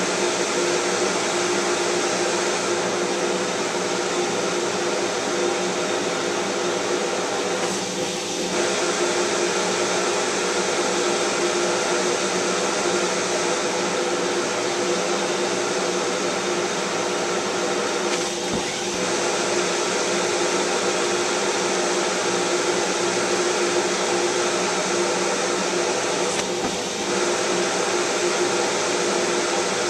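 Big shop vacuum running steadily with a constant hum under the rush of air at its nozzle, its suction drawing angora sweaters against the opening. The sound dips briefly three times.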